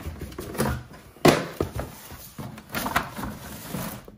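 Cardboard packaging rustling and scraping as a boxed espresso machine is pulled out of a cardboard shipping carton, with a sharp knock about a second in.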